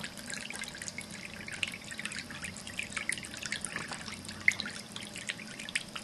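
Water from a running ceramic cat drinking fountain splashing and dripping into its bowl as a steady patter of many small plinking drops, with one louder drop about four and a half seconds in.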